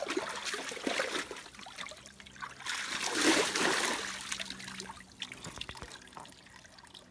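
A wolf splashing and sloshing water in a tub as it steps and paws about in it. The sloshing is loudest about three seconds in and dies down near the end.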